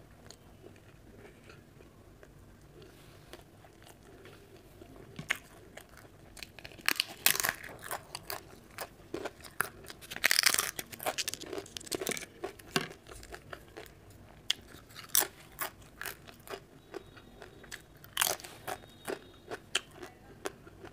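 Mung dal papad being bitten and chewed close to the microphone: soft chewing at first, then from about five seconds in a run of sharp, crisp crunches, loudest in the middle.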